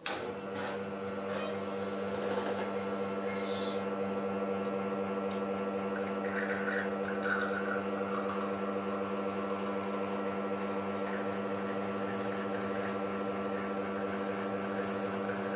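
Wega Polaris commercial espresso machine running a double espresso extraction: the pump hums steadily, starting with a click as the shot begins and holding an even pitch throughout.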